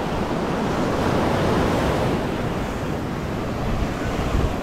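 Steady wash of surf on the beach, with wind rumbling on the microphone.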